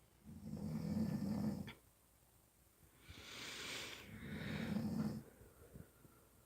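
Loud snoring: a rattling snore that lasts over a second, then after a pause a breathy rush of air running straight into a second rattling snore.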